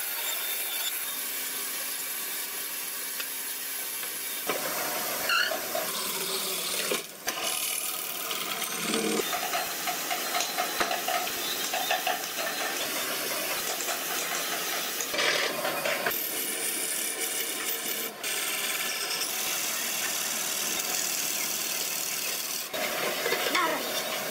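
Woodworking machinery: a bandsaw cutting wood gives way to a belt-driven wood lathe spinning a round wooden blank while a hand-held turning tool scrapes and cuts its face with a squealing, rasping noise. The sound changes abruptly several times.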